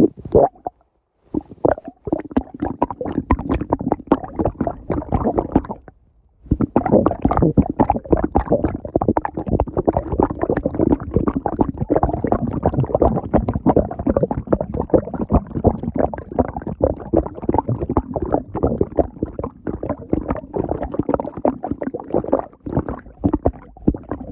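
A person's stomach growling: long runs of rumbling made of many fast little pops, broken by two short pauses, one just after the start and one about six seconds in.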